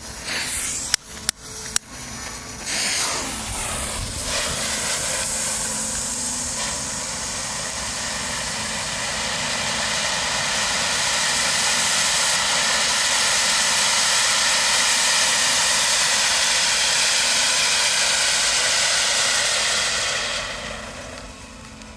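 Three Weco Vesuv ground fountains burning together: a steady hissing spray of sparks that builds over the first few seconds, holds, and dies away about a second before the end. A few sharp clicks come in the first two seconds.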